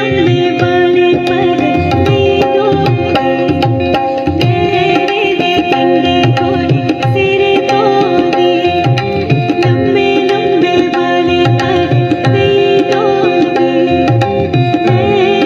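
Live Dogri folk song: a woman singing to acoustic guitar and hand drums, with the drums keeping a steady rhythm.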